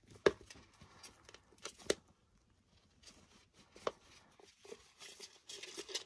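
Young Catalina macaw flapping its pin-feathered wings and scrambling on a cloth over a hard floor. Soft rustling and scuffing, with a few sharp knocks and a busier rush of flapping near the end.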